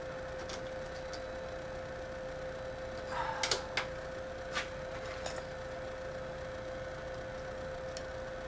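Small sharp clicks and taps of a screwdriver on a screw and a small plastic box as a crooked mounting screw is worked straight: a quick cluster about three and a half seconds in, then a few single clicks. A steady hum runs underneath.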